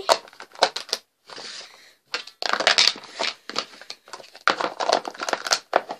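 Small plastic slime tubs and their lids being handled and closed: irregular plastic rustling and clatter with sharp clicks and knocks, in two longer bouts.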